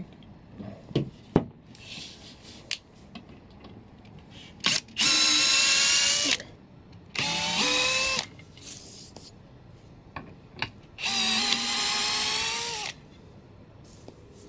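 Cordless drill-driver driving wood screws into pine, its motor whining in three bursts of one to two seconds each, with small clicks and knocks of handling between them.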